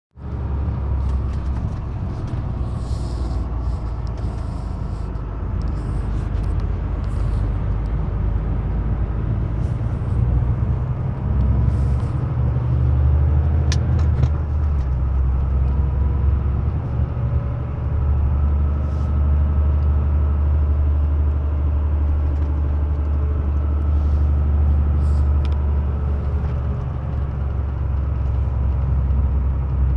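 Motor vehicle driving, heard from inside the cabin: a steady low engine and road drone, with a few light rattles and clicks.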